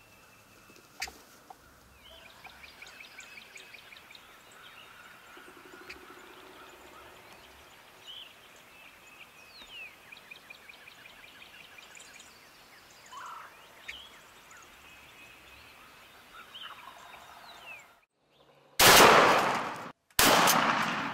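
Outdoor spring field ambience with songbirds chirping and trilling faintly. Near the end comes a sudden loud shotgun blast, followed about a second and a half later by a second loud noisy burst.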